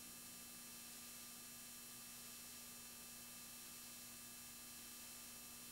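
Near silence: a faint steady electrical hum and hiss from the VHS tape's playback.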